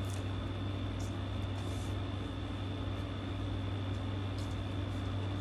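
Steady low room hum with a faint high whine, over which a rotary cutter rolls through ribbon in a few soft, brief swishes; the longest comes about a second and a half in.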